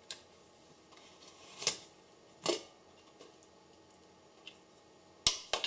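Stainless steel pressure cooker lid being twisted open and lifted off the pot: a few short metal scrapes with quiet gaps between, then a sharp click and a scrape near the end.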